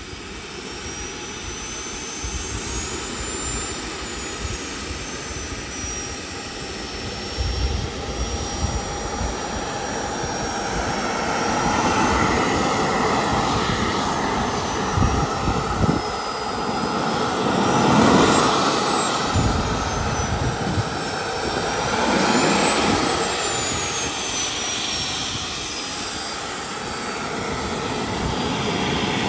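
JetsMunt 250 model turbine in a radio-controlled F-22 Raptor jet running on the ground, a high whine that rises and falls several times with the throttle, loudest in the surges near the middle and end.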